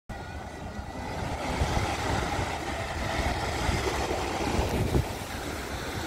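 Small waves breaking and washing up on a sandy beach, a steady surf noise, with wind rumbling on the microphone.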